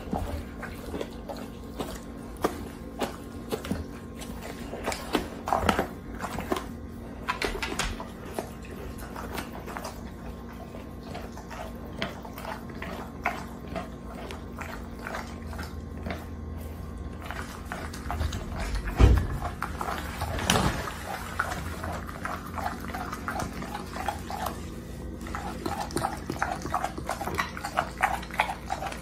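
A pit bull chewing and tearing at a whole raw chicken, with wet smacking and crunching of bone and skin in short irregular bursts that grow denser near the end. About two-thirds of the way through comes a single heavy thump.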